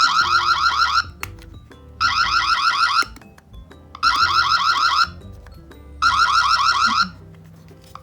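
Annke Whiffle video doorbell's built-in alarm sounding: four one-second bursts of a fast warbling electronic beep, one every two seconds. It is set off because the doorbell is not secured in its mount, as if it had fallen.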